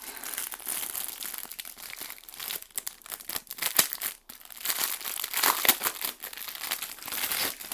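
Plastic packaging crinkling and rustling in irregular handfuls as a handheld radio is unwrapped, louder in a few stretches partway through.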